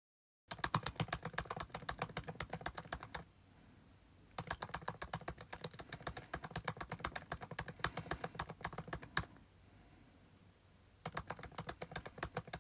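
Computer keyboard typing sound effect: three runs of rapid, quiet key clicks with pauses between them, the typewriter-style effect for on-screen text appearing letter by letter.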